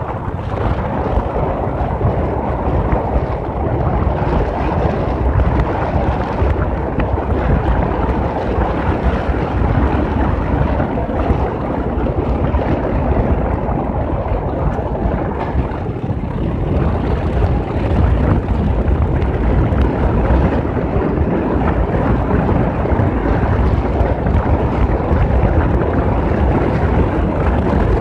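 Wind buffeting the microphone on a moving motorcycle: a loud, steady rush with a deep rumble underneath.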